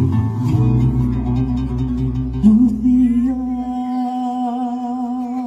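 Live song reaching its end: about halfway in, a male singer slides up into a long held final note with a slight waver over the accompaniment, and the bass drops out soon after.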